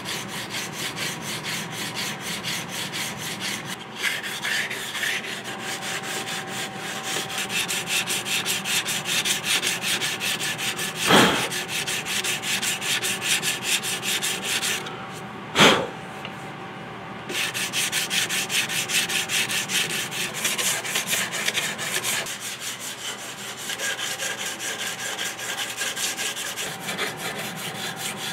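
150-grit sandpaper rubbing by hand along a wooden gunstock in quick, even back-and-forth strokes. Two sharp knocks stand out, about eleven and fifteen seconds in, and the sanding stops for a moment after the second.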